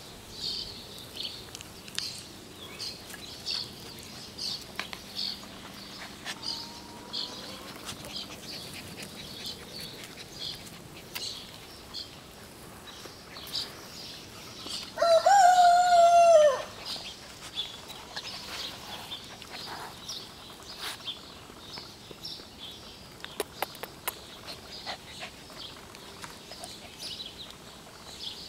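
A rooster crows once, loudly, about halfway through: one long call that falls in pitch at the end. Around it, small birds chirp in short high notes.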